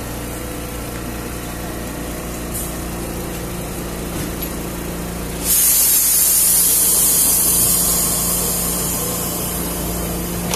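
Traditional Lisbon tram running along the street, a steady motor hum with low tones. About halfway through a sudden loud hiss starts and slowly dies away.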